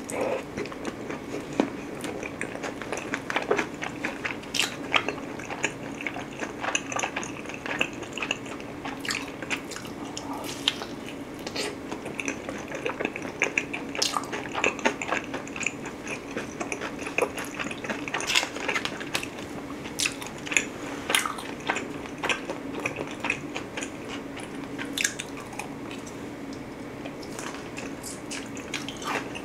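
Close-miked eating sounds: biting and chewing thin-crust pizza, then a forkful of spaghetti near the end, with wet mouth clicks and smacks at irregular moments. A faint steady hum runs underneath.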